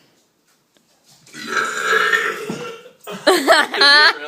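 A person belching loudly: a long, rough belch starting about a second in, then a shorter, more tonal one near the end.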